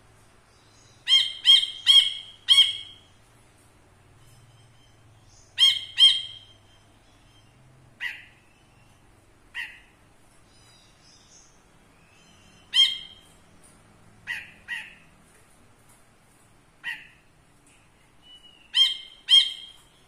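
Caged cinereous bulbul (brinji kelabu) calling: loud, short, sharp notes in quick groups of two to four, with single notes in between and pauses of a second or more. A burst of four opens it, about a second in, and a quick run of three closes it near the end.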